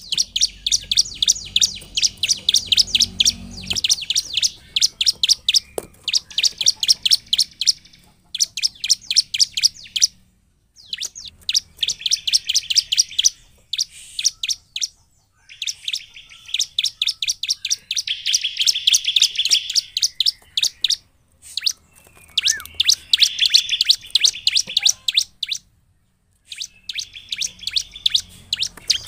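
Bar-winged prinia (ciblek) singing in full voice: long runs of rapid, high, sharp chirps, phrase after phrase, broken by a few short pauses.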